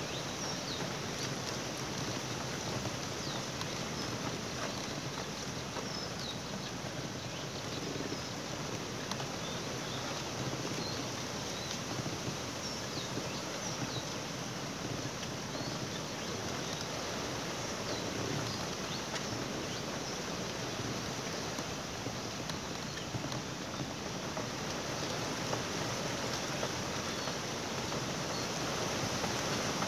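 Steady outdoor hiss like wind, with faint, brief high bird chirps scattered throughout.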